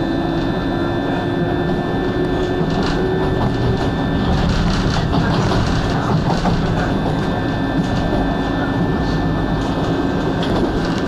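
Steady noise of a train running on the line, a continuous rumble with a few thin, steady high tones above it.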